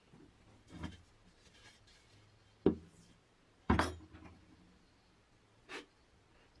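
Handling noises on a wooden workbench as a small metal helmet badge is set down, moved and picked up. A few knocks and rubs, the two loudest being sharp knocks about two and a half and three and a half seconds in.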